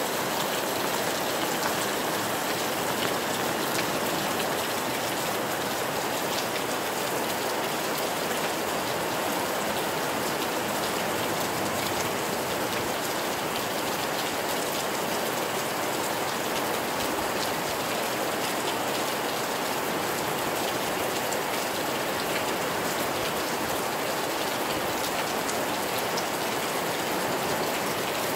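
Rain falling steadily: an even hiss with scattered ticks of individual drops.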